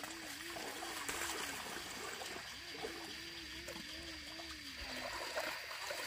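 Water buffalo dragging a wooden plough through a flooded rice paddy: water and mud splashing and trickling around its legs and the plough. Over it, a low wavering tone pulses about three times a second in two runs, the second stopping about five seconds in.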